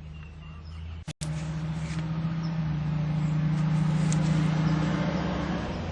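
Steady low mechanical hum over a hiss, a motor running, with a brief dropout about a second in, after which the hum is louder.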